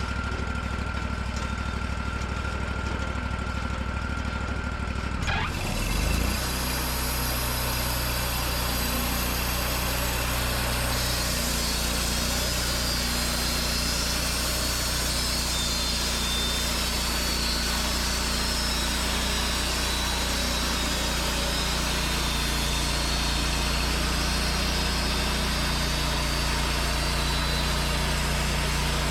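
Wood-Mizer LT40 portable bandsaw mill's engine running at a low speed, then revving up about five seconds in and running steadily at speed. A hissing cutting noise builds from about eleven seconds in as the band blade saws through a hemlock log.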